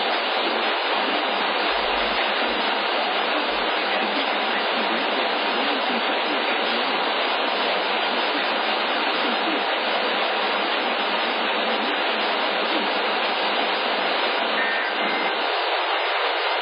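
Steady radio static: an even hiss that is cut off at the top and bottom, as it sounds through a receiver, with no speech or tones on it.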